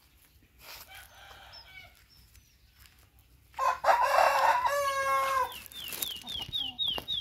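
Rooster crowing once, a loud cock-a-doodle-doo about two seconds long from about halfway through. A fainter call comes about a second in, and a quick run of about six high chirps near the end.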